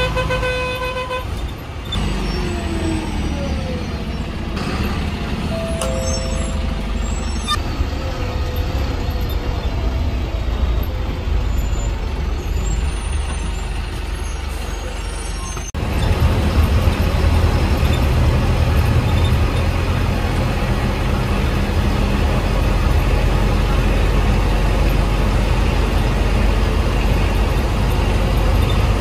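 A vehicle horn toots briefly at the start, over the mixed noise of buses at a bus stand. About halfway through, the sound changes abruptly to the loud, steady low rumble of a bus engine running.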